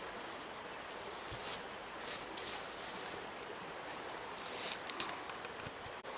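Leaves and undergrowth rustling as a person moves through forest vegetation, in several short brushes, with a sharp snap about five seconds in over a steady outdoor hiss.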